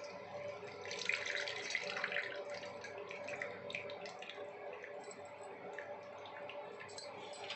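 Tamarind water poured from a bowl into a steel kadai of frying masala: a splashing pour about a second in. Then scattered drips as the tamarind pulp is squeezed out by hand over the pan.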